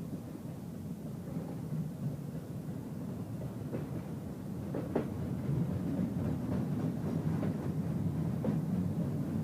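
A train rolling by with a steady low rumble, getting slightly louder partway through, and scattered sharp clicks from its wheels over the track.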